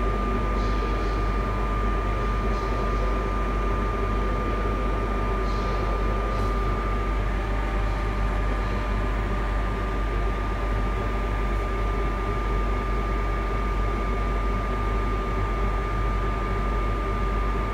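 Steady hum of a stationary Jubilee Line tube train's ventilation and onboard equipment, heard inside the empty carriage, with a constant high-pitched whine over it. The train is standing held at a platform.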